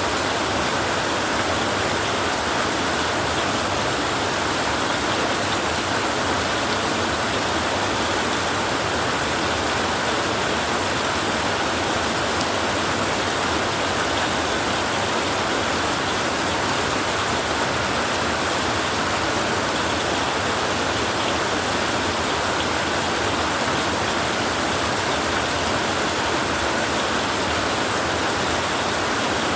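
Heavy rain drumming on a tin roof, a dense, steady hiss that never lets up.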